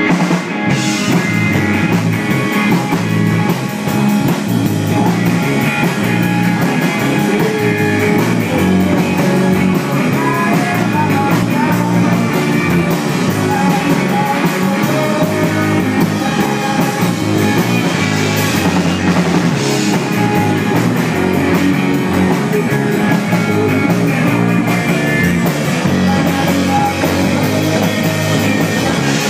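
Live rock band playing: distorted electric guitar, bass guitar and drum kit, with a male voice singing.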